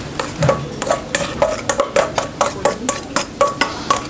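Metal spoon knocking and scraping against a stainless steel bowl as rice is scooped out of it onto a pan. A quick run of sharp clinks, several a second, each with a short metallic ring.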